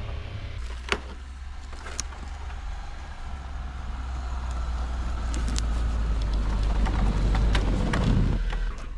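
Car driving: a steady low rumble that grows louder over the middle, with a few sharp clicks and ticks on top.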